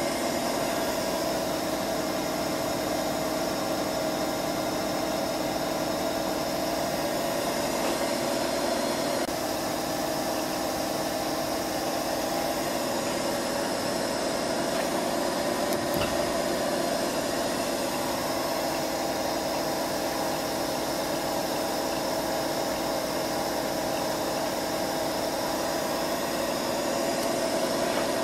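WAGNER BVT 1270 2VS universal milling machine running under power, its drive and gearing giving a steady hum of several held tones.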